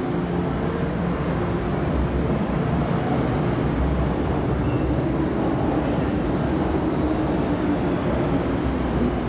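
An MTR metro train runs through the station at speed without stopping, heard behind platform screen doors. It makes a steady rumble of wheels on rail, with a low hum running under it.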